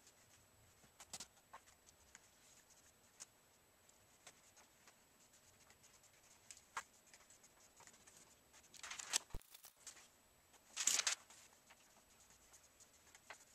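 Faint rubbing, rustling and small ticks of hands wiping plastic garage-door windows with paper towels, with two louder rustling swishes of about half a second each, near 9 and 11 seconds in, and a sharp click between them.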